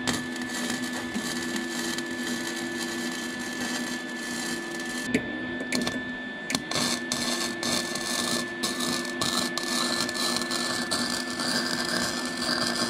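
Electric arc welder laying a long weld on a steel bash bar tube: a continuous crackle and sizzle from the arc, with a steady hum underneath.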